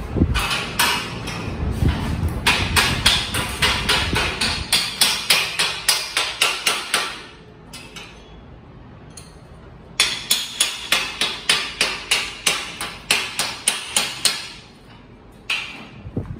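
Welder's hammer striking a welded steel plate in quick ringing metal blows, about three or four a second, stopping for a couple of seconds in the middle and then starting again; the slag is being knocked off a freshly quenched weld.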